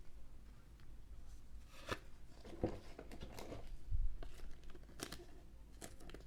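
Trading cards being handled: a run of soft clicks and rustles as cards slide and flick against each other, with a dull thump about four seconds in.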